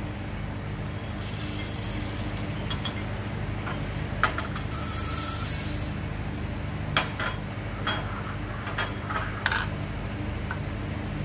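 Coffee beans poured from small glass cups into grinder hoppers, making two short rattling hisses, then the glasses clinking and knocking on the stone counter as they are moved, a few sharp taps, over a steady low hum.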